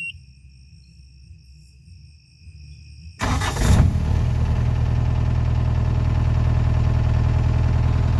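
Bobcat skid-steer loader's newly installed replacement diesel engine cranking and catching about three seconds in, then idling steadily at about 1,200 rpm with the hydraulic pump belt off. It runs well.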